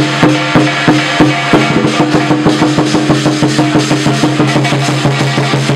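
Lion dance percussion: a drum beaten in a fast, even rhythm over a ringing gong and cymbals, the beat quickening about two seconds in.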